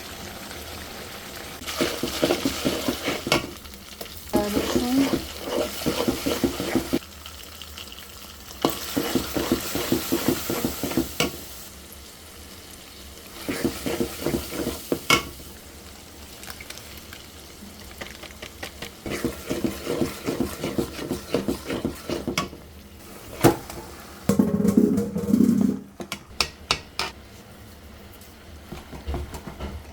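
Chicken frying in a pot for biryani, sizzling steadily. A spoon stirs and scrapes against the pot in repeated bursts of one to three seconds, with a few sharp knocks against the rim.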